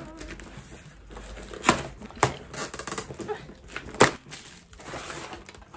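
Cardboard mailer box being torn open by hand: a few short, sharp rips with rustling of the packaging between them, the loudest rip about four seconds in.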